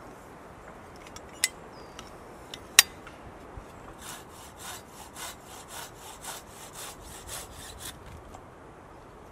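A hand-held folding saw cutting through wood in quick, even back-and-forth strokes, starting about four seconds in and running for about four seconds. Two sharp clicks come before the sawing begins.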